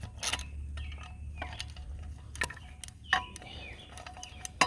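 Metal parts and hand tools clicking and clinking at irregular intervals while an exhaust is fitted to a moped, some strikes ringing briefly, over a steady low hum.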